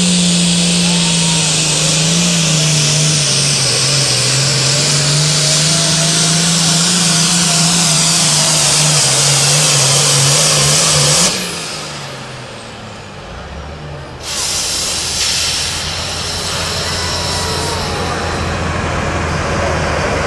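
International Harvester turbocharged diesel hot-farm pulling tractor under full throttle hauling the pulling sled, its engine note sagging slightly as the load builds. About eleven seconds in the throttle comes off suddenly and the engine drops back to a low idle as the pull ends.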